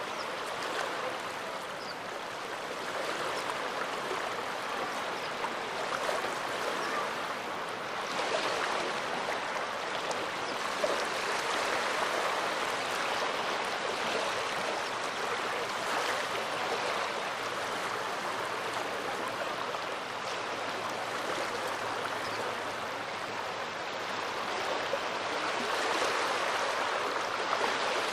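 Small waves of the Gulf of Finland washing onto the shore: a steady rush of water that swells and eases every few seconds.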